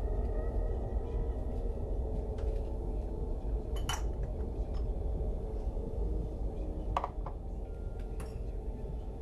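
Glassware clinking on a kitchen cupboard shelf as a glass is taken down: a few sharp clinks, the loudest about four seconds in and two lighter ones a few seconds later, over a steady low hum.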